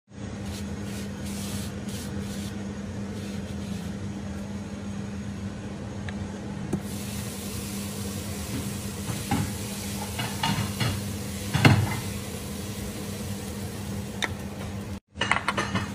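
Roti jala batter drizzled from a perforated cup onto a hot non-stick pan, sizzling lightly from about seven seconds in over a steady low hum. A few light knocks and clatters of the cup and bowl, the loudest just before twelve seconds.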